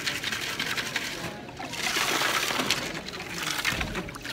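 Gravel rattling against a perforated screen and water sloshing as a gold-panning classifier is shaken back and forth in a tub of water, with a run of small clicks throughout and a louder wash of water in the middle.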